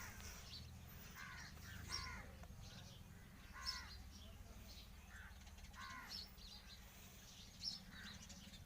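Faint bird calls: short calls repeated every second or so, over a low steady hum.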